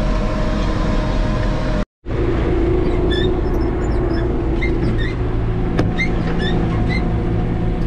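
Tractor engine running steadily, heard from inside the cab. About two seconds in, the sound drops out for a moment at an edit and picks up again as another tractor's steady cab drone with a different held tone. There is one sharp click about six seconds in.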